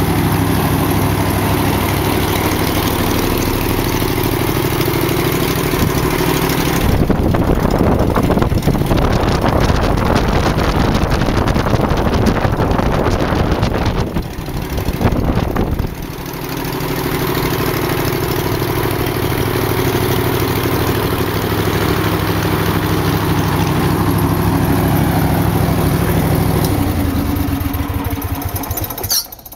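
Straight-piped Generac 38 hp four-stroke engine of a powered paraglider trike, turning a three-blade 72-inch prop, idling steadily. About seven seconds in it is run up, and for roughly nine seconds a louder rush of prop wind covers the engine note. It then drops back to a steady idle and is shut off near the end, running down and stopping.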